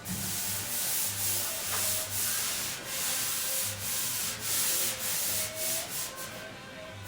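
Rhythmic rubbing strokes across the steel roof panel of a 1970 Dodge Challenger, about two a second, a steady scratchy hiss that rises and dips with each stroke.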